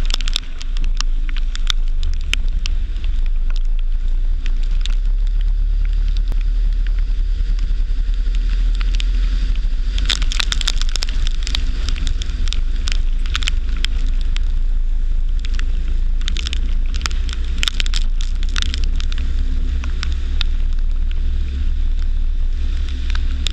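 A car driving through deep floodwater, heard from inside the cabin: a steady low rumble with dense crackling and spattering as the spray hits the bodywork and windscreen. The spattering is heaviest from about ten seconds in and again a little later.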